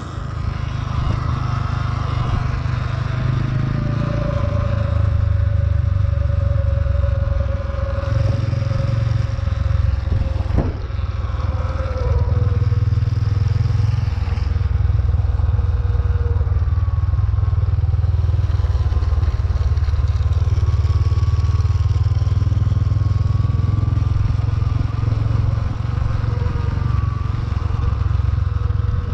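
Motor vehicle engine running steadily while under way, its pitch wavering slightly, with a single sharp knock about ten and a half seconds in.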